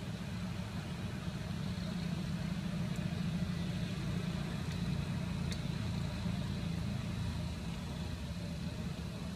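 Steady low rumble with a faint thin high tone above it.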